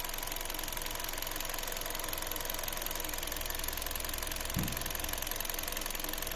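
Car engine idling steadily, heard close up in the engine bay, with one brief low thump about four and a half seconds in.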